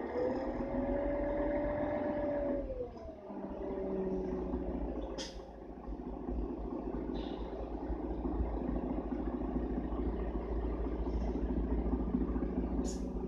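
Cabin sound of a 2001 Mercedes-Benz O530 Citaro city bus with its OM457 hLA diesel and ZF EcoMat automatic gearbox: a deep engine rumble under a mid-pitched drivetrain whine that drops in pitch and fades about three seconds in, giving way to a lower steady hum. A sharp click sounds about five seconds in and another near the end.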